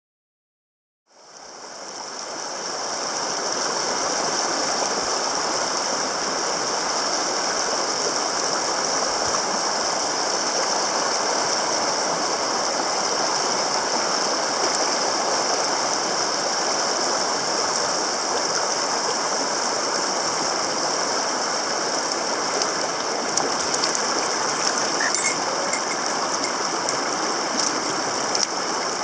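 Fast mountain stream rushing over rocks, fading in about a second in, with a steady high-pitched buzz over it. A few faint clicks near the end.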